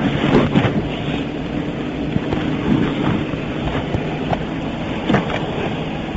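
Steady hum of an idling car engine, with a few short knocks and rustles.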